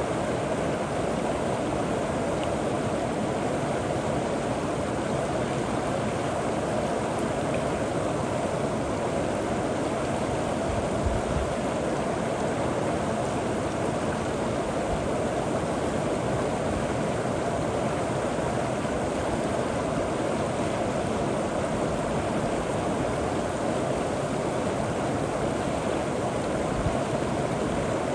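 River water flowing steadily over rocks, a constant rushing with no breaks.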